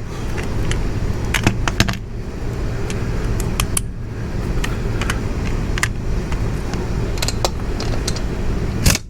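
Light metallic clinks and clicks of socket tools and an extension being handled and fitted onto a bolt, scattered and irregular, with a louder group of clinks near the end, over a steady low background rumble.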